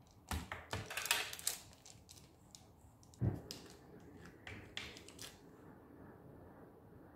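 A kitchen knife cutting through a tray of set burfi: a cluster of sharp clicks and scrapes as the blade presses down onto the baking paper and tray, a dull knock a little over three seconds in, then a few more clicks.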